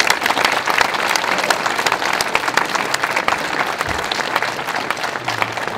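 Audience applauding, a dense steady clapping that eases off slightly toward the end. A low thump is heard about four seconds in.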